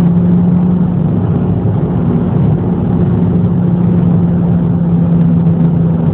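Cabin noise of a 2009 Audi TT 2.0 TFSI cruising at a steady speed: a constant drone at one unchanging pitch over a steady rush of road and tyre noise.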